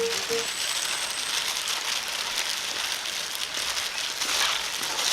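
Wood fire crackling under a cast-iron cauldron (gamasot) of chicken baeksuk, with a steady hiss and scattered crackles.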